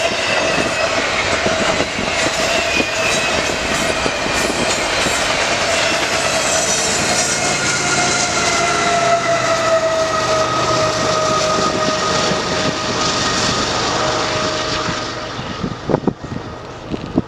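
A double-stack intermodal freight train rolling past, its wheels clattering on the rails with a steady high ringing that sags slightly in pitch, as the last well cars and a trailing locomotive go by. The sound fades out about fifteen seconds in, leaving wind gusting on the microphone.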